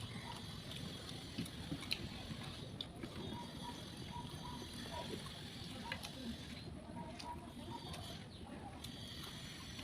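Wet eating sounds: chewing and eating rice with fish curry, with small scattered clicks.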